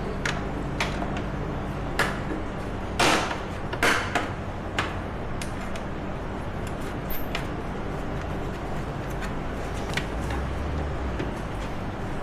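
Hand work on an ATV frame while a bolt is fitted: scattered metal clicks and knocks, with two short scraping noises about three and four seconds in, then only sparse small clicks over a steady low hum.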